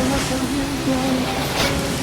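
Storm wind gusting hard at close to 100 km/h, a steady rushing noise, with a faint held low note from background music under it.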